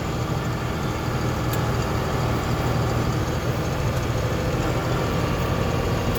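Tractor engine running steadily while pulling a working round baler, heard from inside the tractor cab as an even low hum.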